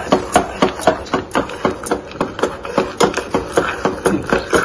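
Steel spoon stirring thick ragi porridge in a stainless steel pot, clinking against the pot's sides about three times a second. Near the end, water is poured in from a steel vessel.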